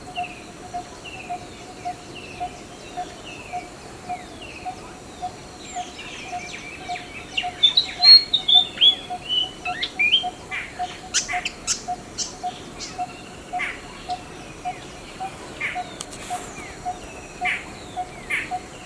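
Wild birds chirping: short downward-slurred chirps repeat about twice a second, then a busy, louder flurry of calls about a third of the way in, a few sharp clicks just past halfway, and scattered chirps after that. Underneath, a low, steady pulsing note repeats about three times a second.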